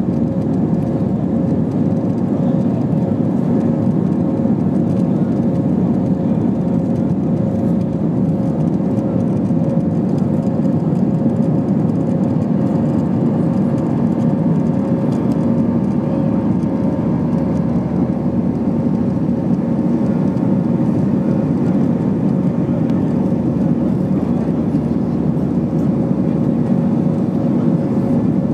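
Steady jet engine and airflow noise inside the cabin of an Airbus A320 climbing out after takeoff: an even, unbroken hum with a few held tones running through it.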